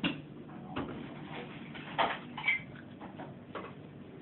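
A few sharp knocks and clinks of dishes and drinking glasses being handled, about four in all, one ringing briefly like a struck glass.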